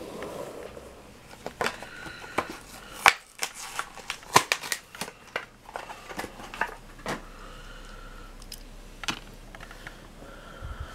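A run of sharp plastic clicks, snaps and crinkles from hands handling a 1/64-scale Hot Wheels diecast car and its blister-card packaging. The clicks are densest in the first half and thin out to a few single clicks near the end.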